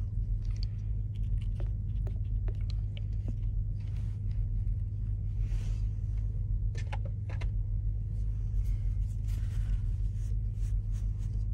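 Steady low rumble of an idling truck engine, heard inside the cab. Small scattered clicks and rustles of a plastic bottle and cotton pads being handled sit on top.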